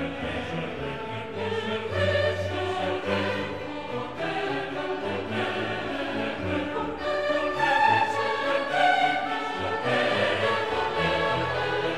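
Background classical music: a choir singing held notes with orchestral accompaniment.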